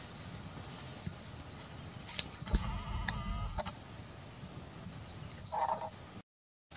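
Steady insect chirring, a few sharp crackles from the wood fire, and a short pitched animal call about two and a half seconds in, with another near the end.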